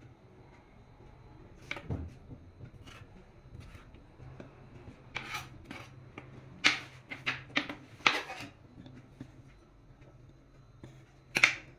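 Kitchen knife cutting green vegetable stalks on a cutting board: scattered sharp taps of the blade on the board, a quick run of them about halfway through and one louder knock near the end.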